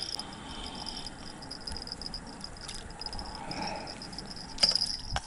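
Crickets chirring steadily in a high, continuous trill, with a few sharp clicks near the end.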